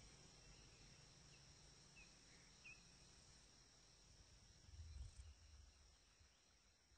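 Near silence: a faint steady high-pitched hum, with two faint short chirps about two seconds in and a faint low rumble near the end.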